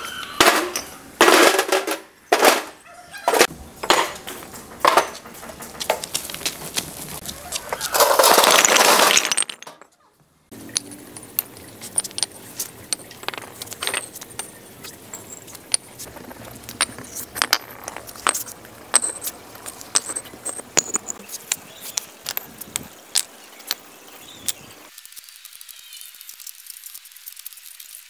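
Hollow fired-clay bricks knocking against each other and clanking into a steel wheelbarrow, with a loud clattering rush about eight seconds in. After that come many lighter taps and clinks as bricks are set down on concrete.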